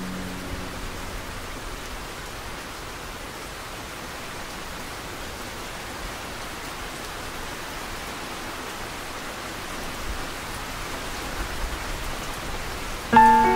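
Steady rain falling, an even hiss with no tune over it. Near the end, musical notes come in over the rain.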